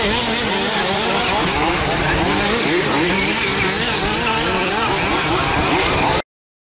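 Several 1/5-scale two-stroke petrol RC buggies racing, their small engines revving up and down over one another with a buzzing note. The sound cuts off abruptly about six seconds in.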